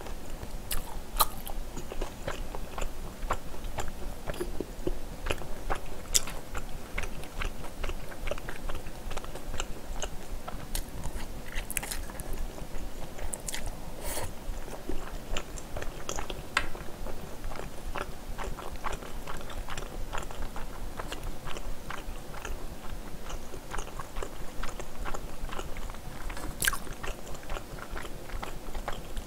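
Close-miked chewing and mouth sounds of a person eating spicy stir-fried pork (jeyuk bokkeum) with rice, a steady stream of wet chewing noises with a few sharper clicks here and there.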